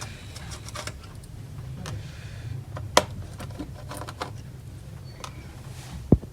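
Small plastic clicks and taps as cable connectors on a laptop motherboard are unlatched and the cables handled, with a sharp click about three seconds in and a quick run of three clicks near the end. A low steady hum runs underneath.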